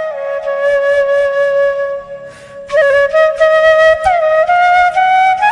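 Background instrumental music: a flute-like melody of long held notes over a low steady drone, with a brief pause a little over two seconds in.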